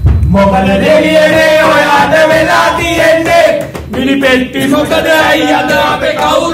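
A group of young men and women singing a Sinhala song loudly together in a chant-like unison, with male voices leading into a hand-held microphone.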